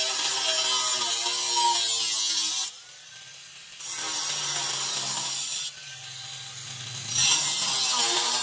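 Angle grinder with a thin cutoff wheel cutting through a steel circular saw blade. The cutting noise drops out twice, for a second or so each time, leaving only the grinder's lower motor hum, then bites back in.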